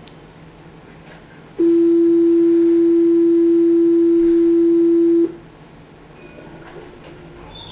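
Alstom Citadis 302 tram's electronic warning tone inside the car: one loud, steady single-pitch tone held for nearly four seconds, then cutting off sharply. It sounds over a faint interior hum and is typical of the door-closing signal before the tram pulls away.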